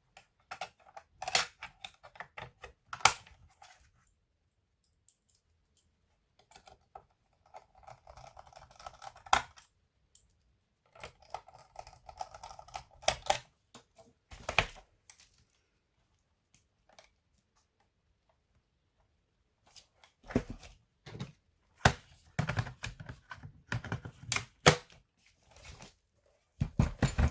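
Irregular clicks and taps in short spells, separated by pauses, with some scraping between them and a few duller knocks near the end, typical of handling and typing on a laptop.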